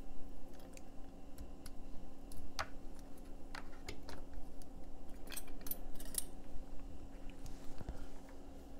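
Scattered light clicks and rattles of hands handling a power cord, pushing its plug into the input connector of a bare power-supply circuit board and then picking up test probes, over a faint steady hum.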